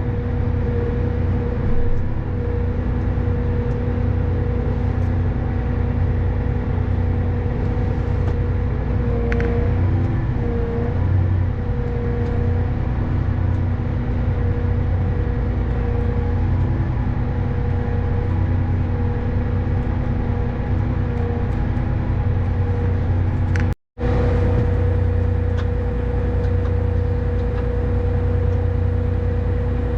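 Tractor engine running steadily under load while pulling a planter, heard from inside the cab, with a steady whine over the low drone. The sound cuts out for an instant about 24 seconds in, then carries on unchanged.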